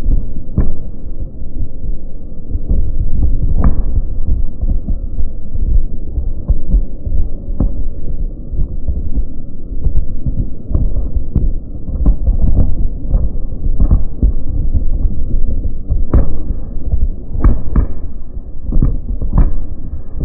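Fireworks barrage: many aerial shells bursting in quick succession, making a continuous low rumble with frequent sharp cracks on top.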